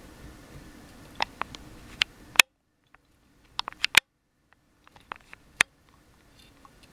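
Male Russian tortoise's mating call: a scattered series of short, sharp squeaks, several of them close together near the middle.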